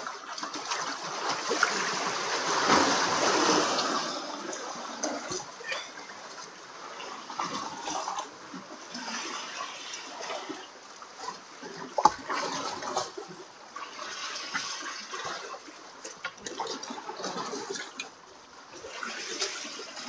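Seawater sloshing and gurgling among concrete breakwater tetrapods as waves wash in and drain out, in uneven surges, the biggest a couple of seconds in. A single sharp knock about twelve seconds in.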